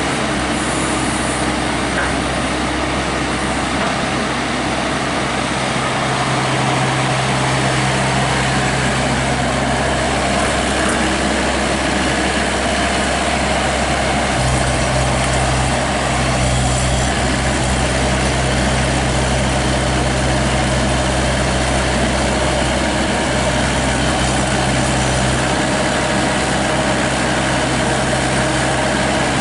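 GroundHog BH30D compact excavator's engine running steadily as the machine digs dirt. Its low hum gets stronger about halfway through.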